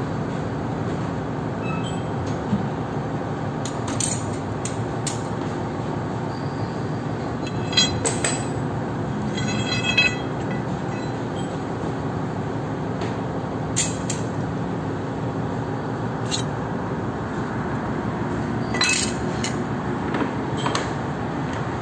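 Metal lathe running steadily, with scattered sharp metallic clinks and a short ringing squeal about eight to ten seconds in, as the tool parts a freshly threaded plug off the bar stock.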